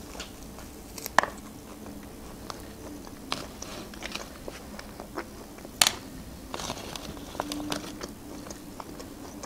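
Chewing a piece of grilled shashlik meat close to the microphone: wet mouth clicks and smacks, with a sharper click about a second in and another near six seconds.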